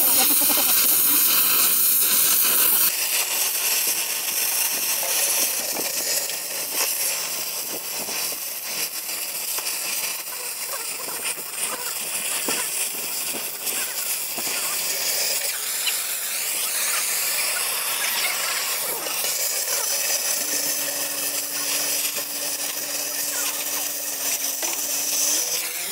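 Gas cutting torch hissing steadily as it burns into the steel door edge of a concrete-filled safe, with scattered sharp pops and crackles, which the testers put down to the concrete filling popping when it reaches the burn zone.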